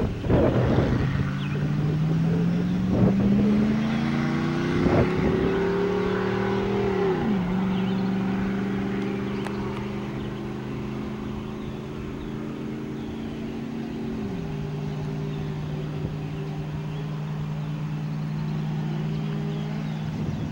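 Car engine accelerating, its pitch rising steadily for several seconds, then dropping at a gear change about seven seconds in. It runs at a steady pitch, drops again at another shift about fourteen seconds in, and settles into a steady cruise. A few loud knocks come right at the start.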